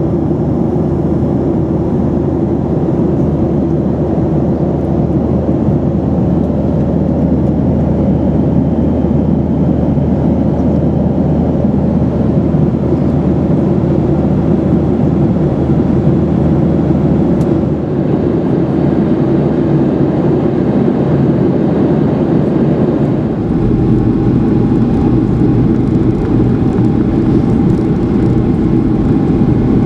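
Boeing 737-800 cabin noise: its engines and airflow heard from inside the cabin as a steady, loud rumble with a hum. About 23 seconds in, the low rumble grows deeper and fuller.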